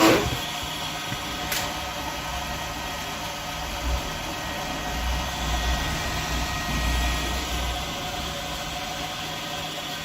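BMW engine idling steadily, with a low rumble that swells for a few seconds midway.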